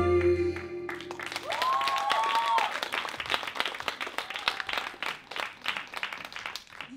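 The last held note of the dance music stops about a second in, and an audience breaks into applause, with a single voice whooping about two seconds in.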